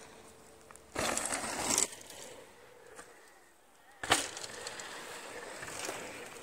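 Mountain bike tyres on a loose dirt trail: a short burst of tyre noise about a second in, then a sharp knock as a bike lands off a jump about four seconds in, followed by tyres rolling and skidding over dirt that fades away.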